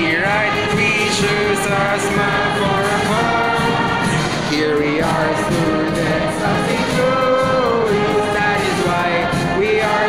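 Many voices singing a slow song together, with long held notes.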